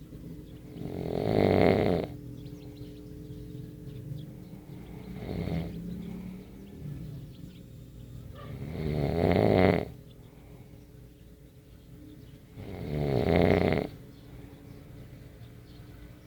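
A sleeper snoring: four snores about four seconds apart, each building up and then stopping abruptly, the second one weaker than the rest.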